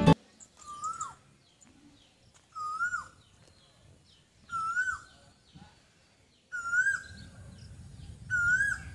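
A bird calling: a short whistled note that rises and then drops, repeated five times about two seconds apart, with fainter high-pitched chirps alongside.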